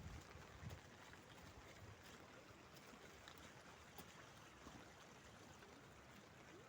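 Faint, steady rush of floodwater running down a street.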